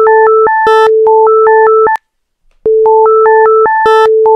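Computer-generated sound file of layered synthesized tones, loud: a steady low tone under higher beeps that step up and down in quick notes, a click at each note change, and once per loop a brief buzzy burst of high tones. It cuts off about two seconds in and starts again just over half a second later.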